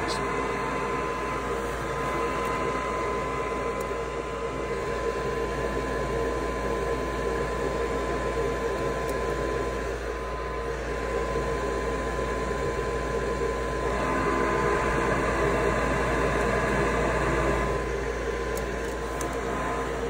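Draft inducer motor of a Maytag (Nordyne) single-stage high-efficiency gas furnace running steadily during start-up, pulling the draft that closes the pressure switches before ignition. A steady hum with a constant whine, getting a little louder for a few seconds about two-thirds of the way through.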